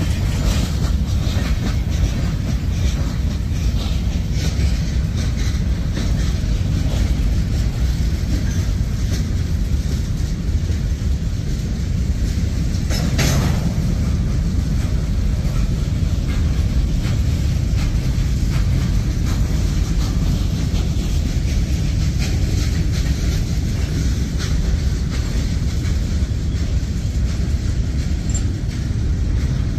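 Freight train of tank cars and covered hopper cars rolling past: a steady low rumble of steel wheels on rail, with a brief sharper metallic noise about thirteen seconds in.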